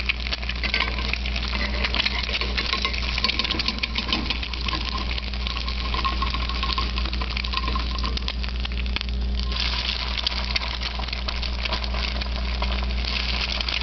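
Egg frying in olive oil in a cast-iron skillet: a steady sizzle of dense, fine crackles and pops, over a low steady hum.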